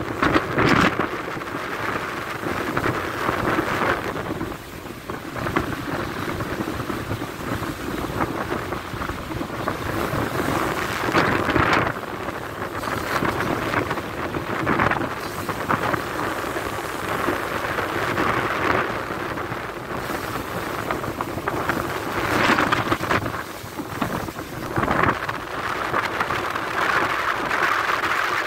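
Strong wind buffeting the microphone over rough sea rushing and breaking along a cargo ship's hull, a continuous rushing noise that swells louder in irregular surges.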